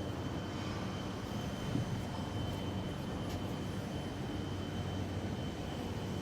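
Plastic pelletizer production line running in a factory hall: a steady machine hum with a faint high whine.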